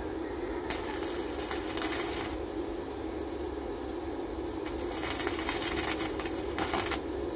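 Stick-welding arc from a small inverter welder crackling in two spells, the first about a second in and lasting over a second, the second from about five to seven seconds in. A steady hum runs underneath.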